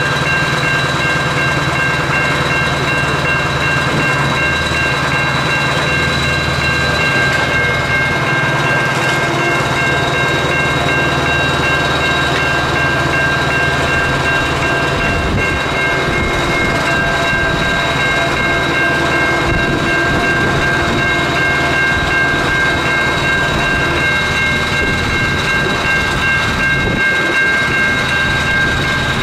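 Heavy diesel machinery running steadily: a constant low engine hum with several steady high-pitched whining tones over it.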